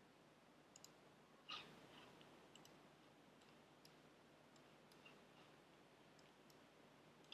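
Near silence: room tone with a few faint computer clicks as applications are switched. One slightly louder click comes about a second and a half in.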